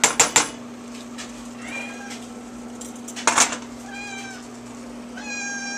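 Domestic cat meowing three times, the last call the longest. Sharp clatter near the start and again about halfway through, over a steady low hum.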